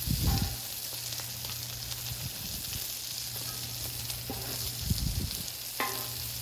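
Patty melts sizzling steadily in butter on a Blackstone flat-top griddle, with a couple of short dull thumps, one near the start and one about five seconds in.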